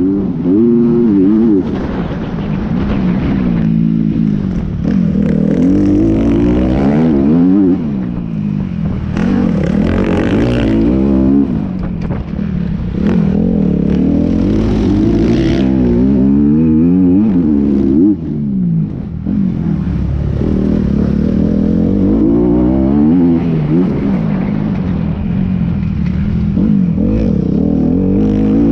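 Motorcycle engine running under way, its note climbing and dropping over and over as it accelerates, changes gear and slows, over a steady low rumble.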